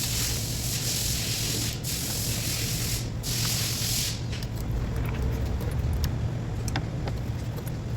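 A continuous spraying hiss, broken twice for a moment, that stops about four seconds in, over a steady low hum; a few light clicks follow.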